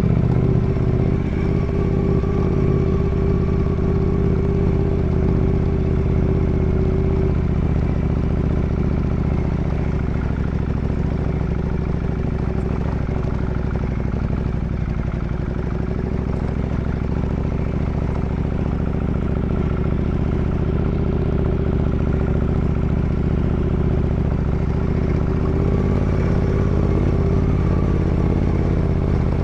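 Ducati Multistrada 1200S's L-twin engine running steadily while the bike is ridden. A higher tone in the engine note fades about seven seconds in and comes back near the end.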